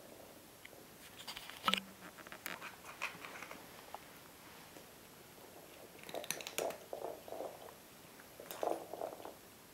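Soft tapping, scratching and rustling of cats pushing a small ball and a plastic track toy about on a carpet, in scattered short clusters with quiet gaps between.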